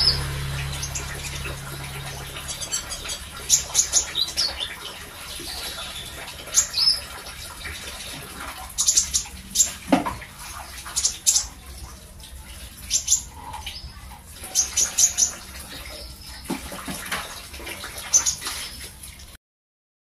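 Caged konin (kolibri ninja, a sunbird) chirping: short high notes, often in quick groups of two to four, repeated every second or two over a faint low hum. The sound cuts off just before the end.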